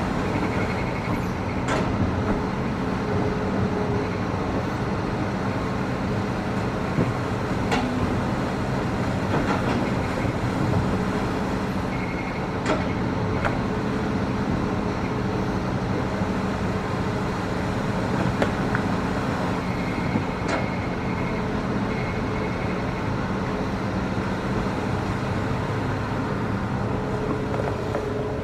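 Hitachi ZX210 excavator's diesel engine running steadily under working load while it digs hard rock, with a few sharp knocks of rock striking the steel bucket.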